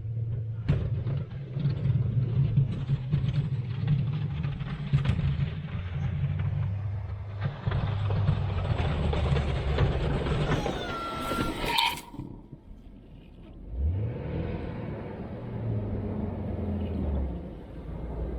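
Engine running under load. It drops off about twelve seconds in, then revs up again with a rising pitch, with a brief high whine just before the drop.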